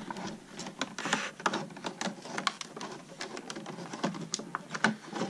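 Stiff clear plastic packaging crinkling and clicking in irregular crackles as hands work a graphing calculator out of it.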